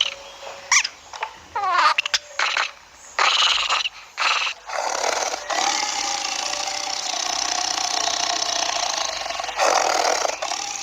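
Animal calls: a few short, downward-gliding calls, then rough bursts and one long, harsh call lasting several seconds.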